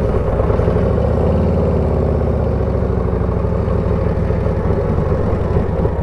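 Harley-Davidson Road Glide ST's V-twin engine running while the bike is ridden. Its pitch rises slightly about a second in and then holds steady.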